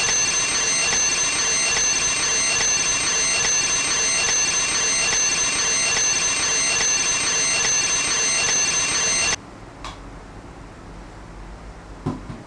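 Twin-bell mechanical alarm clock ringing steadily with a bright metallic clang, cutting off suddenly about nine seconds in. A couple of soft knocks follow in the quiet room.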